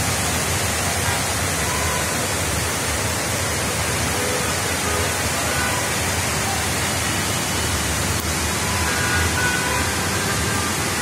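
Heavy monsoon downpour: dense rain falling on the city, an even, unbroken hiss.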